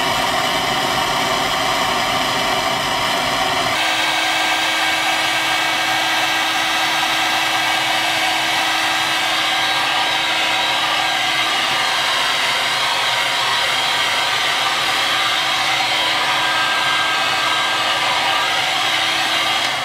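Electric heat gun blowing steadily, heating a freshly soldered wire joint, most likely to shrink tubing over it. About four seconds in its sound shifts, with a steady hum coming in under the airflow.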